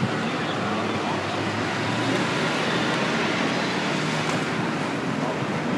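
Steady road and wind noise of a moving car, with faint talk under it.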